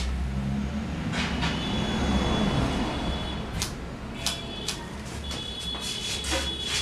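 Hair-cutting scissors snipping through short thick hair, several separate sharp snips, over a steady low rumble.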